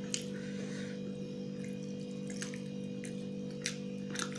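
Wet eating sounds of a man eating rice and fish masala with his hand: a few short, sticky clicks spread through, over a steady low hum.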